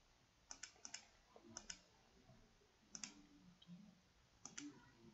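Faint computer mouse clicks: about five quick press-and-release pairs, spaced irregularly, as tabs and a drop-down menu in a program are clicked.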